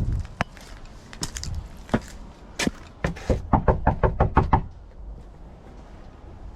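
Scattered sharp knocks and clicks, with a quick run of about eight taps in about a second near the middle.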